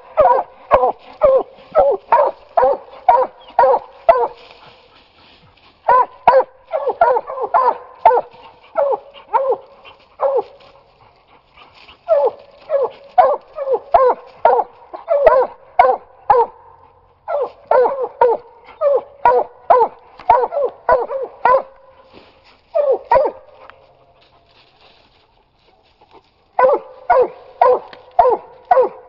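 Two Bluetick coonhounds barking treed at the foot of a tree, the sign that they have quarry up the tree. Loud, fast barks at about two a second, in runs broken by several short pauses.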